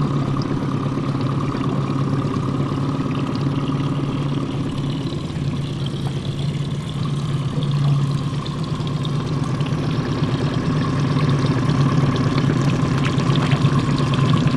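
Mercury outboard motor running steadily at trolling speed, an even low drone with a higher steady whine. Near the end there is light splashing as a hooked kokanee thrashes at the surface.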